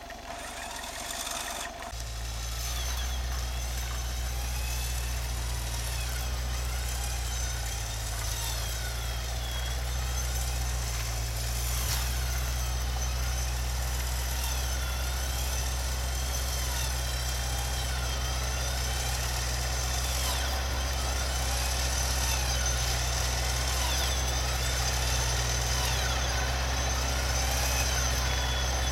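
Hyundai Galloper SUV's engine running steadily at low revs, a low rumble as it crawls through deep snow; it gets louder about two seconds in.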